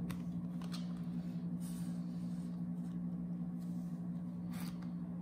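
A steady low electrical hum, with a few faint clicks from the camera being handled.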